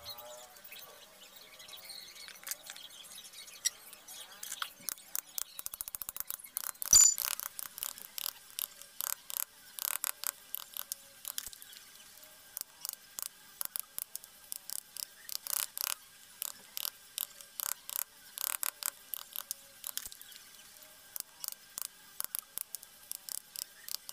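Hand chisel cutting and paring teak between the links of a carved wooden chain: a run of short, irregular cutting clicks and scrapes, with one louder knock about seven seconds in.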